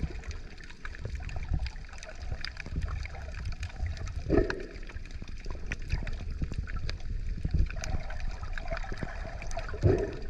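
Water splashing and trickling, with many small splashes and two louder splashes, about four seconds in and near the end.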